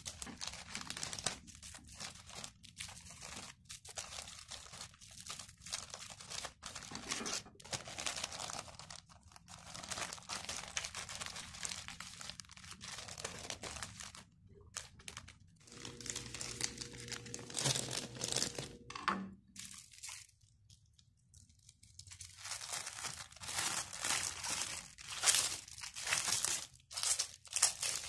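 Plastic zipper bag and cling-film wrap crinkling and rustling in irregular bursts as they are handled and pressed flat, with a short lull about two-thirds of the way through.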